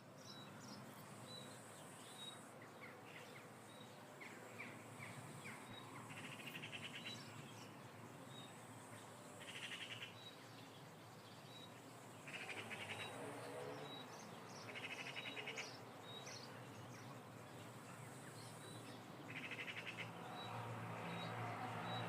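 Faint bird calls: a short high chirp repeats about once a second, and a buzzy, rasping trill lasting about a second comes every few seconds.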